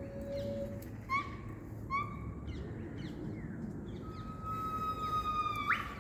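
Animal calls whose caller is not identified: two short whistled notes, each with a quick upward flick, then a long steady whistle near the end that falls slightly. A sharp knock comes just before the end.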